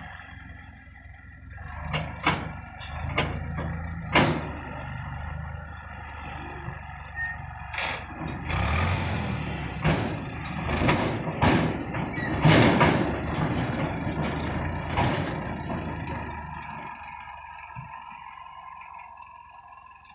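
Indo Farm 3060 DI tractor engine running as it drags a hydraulic tipping trolley with its body raised, with repeated sharp clanks and rattles, loudest and densest in the middle; the noise dies away near the end.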